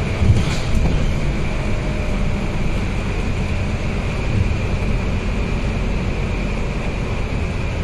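Inside a moving Scania K230UB city bus: a steady low diesel drone with road noise and a steady high whine, and a brief rattle or knock about half a second in.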